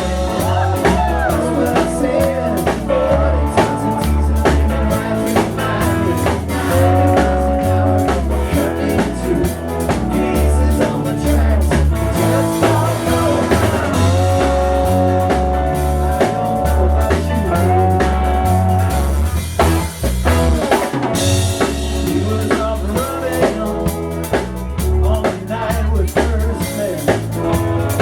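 Blues-rock band music with drum kit, bass and held melodic notes, with a steady beat.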